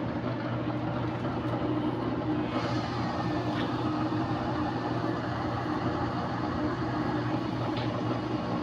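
Samsung front-loading washing machine's brushed drive motor running steadily on the spin cycle, a steady hum with a few faint ticks. It runs on freshly fitted carbon brushes and sounds good, with the E3 motor error cleared.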